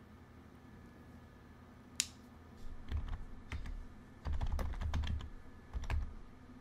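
Typing on a computer keyboard: one sharp click about two seconds in, then a quick, irregular run of keystrokes with dull thumps that stops about six seconds in, as a short command is typed and entered.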